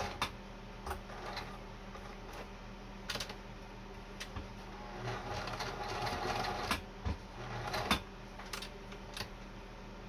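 Kenmore 158.10500 sewing machine sewing straight stitch through two layers of heavy denim, running in short stretches with scattered sharp clicks in between.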